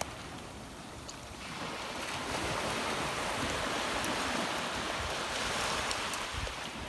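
Rushing of waves and wind, growing louder about a second and a half in, with gusts buffeting the microphone.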